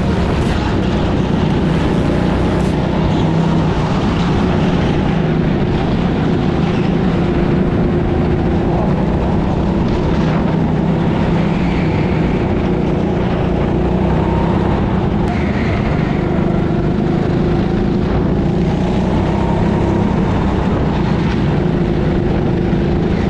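Rental go-kart engine running hard through laps, heard from onboard the kart. The note is steady and loud, rising and falling a little with the throttle through the corners, with other karts running alongside.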